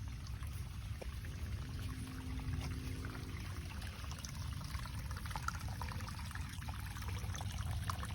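Storm runoff water running and trickling down a small draw after a heavy rain, a steady wash of water with many small splashes and drips.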